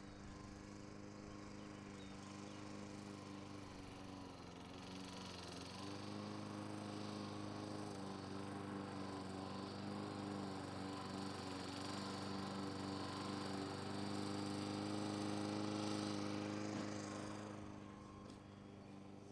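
Electric Sky 40 RC model airplane's motor and propeller buzzing steadily as it flies its landing approach. The buzz grows louder over about ten seconds and fades near the end as the plane comes down onto the grass.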